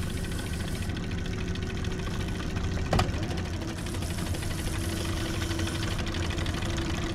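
Boat outboard motor running at a steady idle, with a single sharp click about three seconds in.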